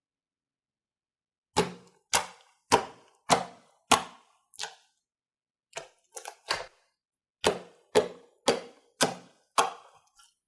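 Slime being handled, giving a run of sharp pops about two a second: six, a short pause, then about nine more.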